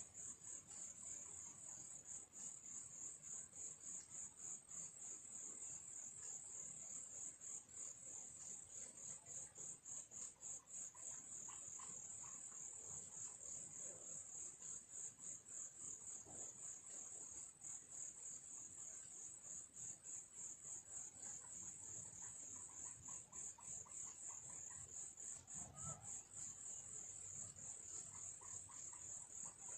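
Insects chirring: a steady, high-pitched, evenly pulsing trill, like crickets.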